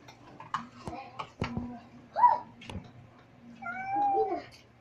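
A cat meowing several times: a short, loud meow about two seconds in and a longer, drawn-out meow near the end, with scattered clinks and knocks of dishes on the table between them.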